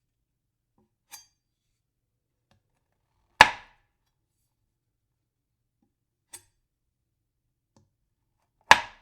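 A knife blade striking a wooden board: two sharp loud chops about five seconds apart, each with a quick fading ring, and a fainter tap before each.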